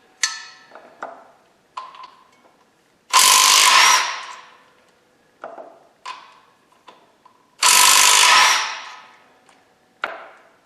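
Power impact wrench run in two bursts of about a second each, one about three seconds in and one near eight seconds, spinning out the flex plate bolts on a 3.5 Duratec engine. Short metallic clicks and clinks come between the bursts.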